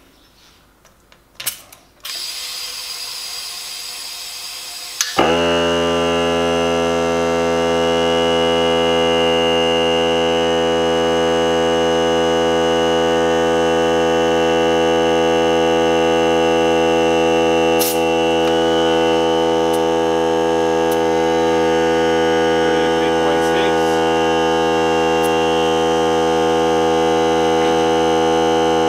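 Ryobi 18V ONE+ cordless air compressor inflating a car tyre: a click or two, then air hissing through the inflator into the tyre. About five seconds in, the compressor's motor kicks on and runs with a steady hum, topping up its small tank, which has run low on pressure.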